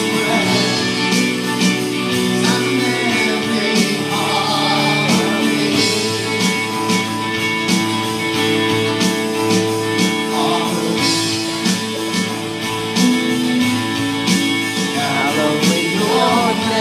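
Live worship band: a man singing into a microphone in phrases over a strummed acoustic guitar and a drum kit keeping a steady beat.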